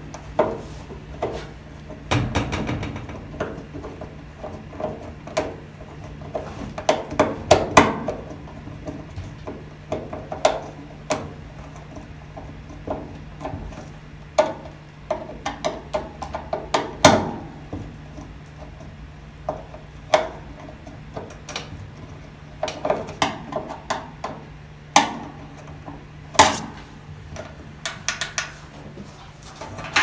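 Irregular clicks and knocks of plastic against sheet metal as a replacement Whirlpool dryer door switch is handled and pressed into its mounting hole in the cabinet's front panel, some coming in quick clusters. A low steady hum runs underneath.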